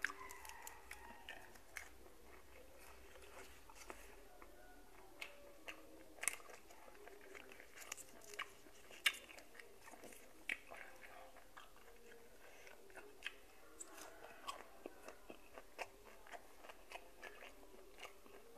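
Faint chewing and mouth sounds as someone eats boiled golden apple snails, with many short, sharp clicks and taps at irregular intervals, a few louder than the rest.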